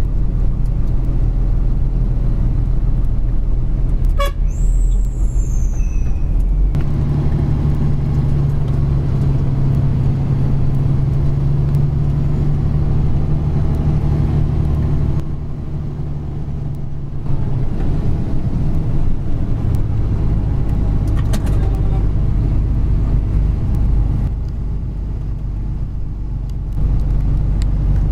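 Fuso self-loader truck's diesel engine running under load, heard from inside the cab as a steady low drone. It eases off twice for a couple of seconds, about fifteen and twenty-four seconds in.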